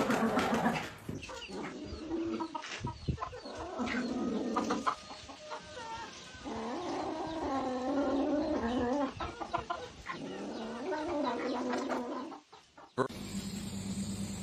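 A bird clucking and calling repeatedly, with a longer wavering call in the middle. Near the end the sound cuts off suddenly to a steady low hum.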